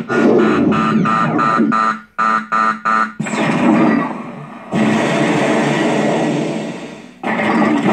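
Proton pack replica's sound effects playing from its speaker: a loud electronic buzzing blast broken by three short chopped pulses about two seconds in. A fresh blast starts about five seconds in and fades away.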